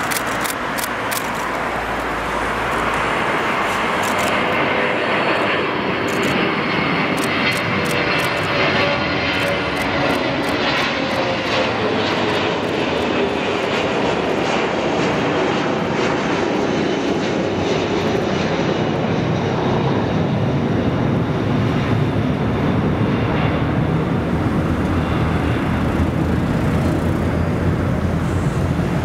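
Jet noise of a Boeing KC-135 Stratotanker's four turbofan engines at takeoff power as it climbs out and passes by. The engine whine slides down in pitch as it goes past, leaving a deeper, steady sound as it flies away.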